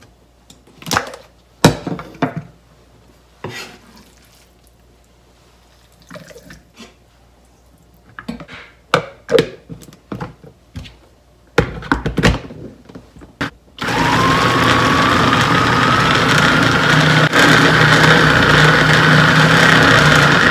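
Small electric food chopper with a press-down motor top, blending pieces of raw cod into fish paste: after the clicks and knocks of the plastic bowl, blade and lid being fitted, the motor starts about two-thirds of the way in and runs loudly for about seven seconds, with a whine that slowly rises in pitch.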